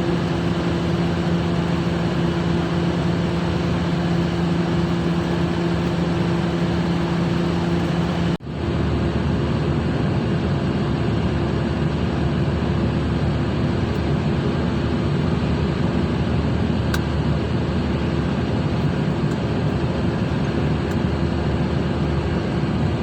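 Steady drone of a ship's machinery with a low, even hum. About eight seconds in the sound drops out for an instant at a cut and resumes with the lower hum tone gone.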